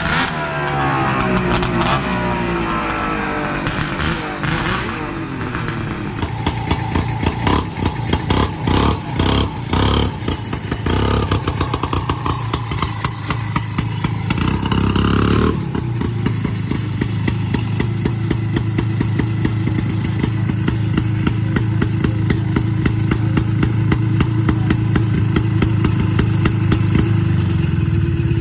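Vintage snowmobile two-stroke engine running, its pitch rising and falling with the throttle at first, then settling into a steady, fast run about halfway through.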